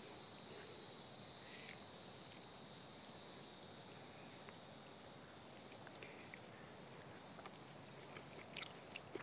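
Steady, high-pitched chorus of insects such as crickets, with a few faint clicks near the end.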